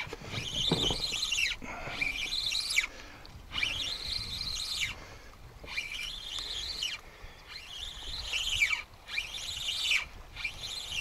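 Spinning reel being cranked to bring in a hooked fish: a high whirring whine from the reel that rises and falls in pitch with each burst of cranking, about seven times, with short pauses between.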